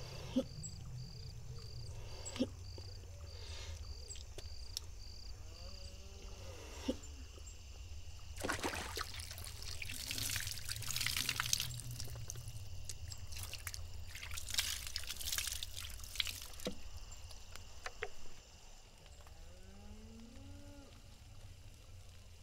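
Water scooped from a large storage jar with a plastic bowl and poured, splashing in three bouts: a short one about eight seconds in, a longer one around ten to twelve seconds, and another around fourteen to sixteen seconds. Evenly spaced high chirps run through the first six seconds.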